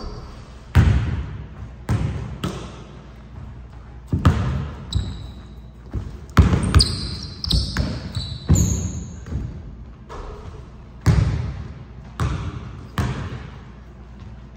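Basketball bouncing on a hardwood gym floor in irregular dribbles and bounces, each hit echoing through the hall. Short high sneaker squeaks on the wooden floor come between them, several in a row around the middle.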